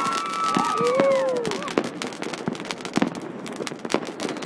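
Fireworks going off at close range: a dense run of bangs and crackles, with several long whistles sliding down in pitch during the first second and a half.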